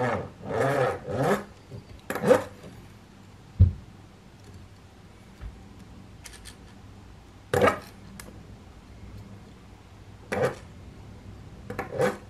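LEGO Technic street bike pushed along a table: its gear wheels drive a plastic mechanism that gives a short rattle with each push, meant to mimic a motorbike engine. There are several bursts in quick succession at first, then single ones a few seconds apart, and one low thump about three and a half seconds in.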